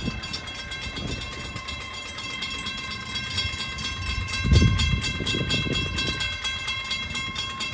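Railroad grade-crossing warning bell ringing rapidly and steadily while the gates are down and the signal lights flash. Bursts of low rumble come and go around the middle.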